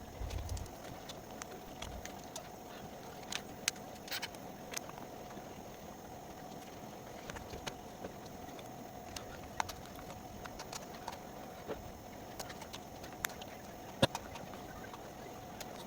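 Scattered light clicks and taps of small parts and tools being handled, irregular and a few seconds apart, with a sharper click about fourteen seconds in, over a steady faint hum.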